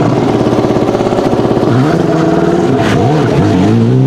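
Alpine A110 R-GT rally car's 1.8-litre turbocharged four-cylinder engine pulling from low revs with a pulsing note, then revving up and dipping again through gear changes and climbing near the end. A single sharp pop comes from the exhaust about three seconds in.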